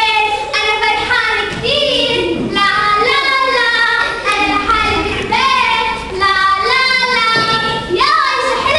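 A girl's voice singing a melody without instrumental accompaniment, in long, smoothly gliding phrases.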